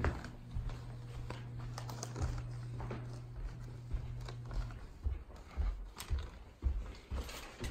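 Footsteps climbing carpeted stairs: irregular dull thumps with small clicks and rustles from the handheld phone. A steady low hum runs underneath and stops about five seconds in.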